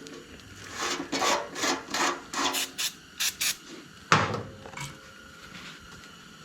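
Hand scraping or abrading strokes on an engine part, quick and back-and-forth at two to three a second, then a single sharp knock about four seconds in.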